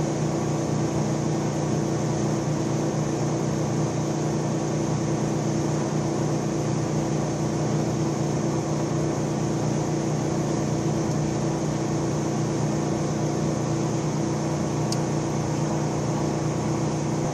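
Steady electric motor hum of a 1942 Giddings & Lewis Model 25 horizontal boring machine left running between cuts, an even drone with no change in pitch or load.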